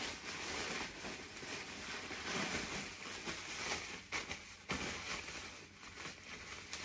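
Plastic wrapping rustling and crinkling as a dish is unwrapped by hand, with two sharp clicks a little after four and five seconds in.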